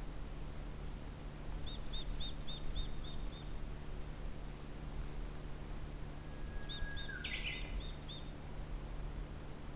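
A small bird singing two quick phrases of rapid high chirps, each phrase about six or seven notes, over a steady low background rumble.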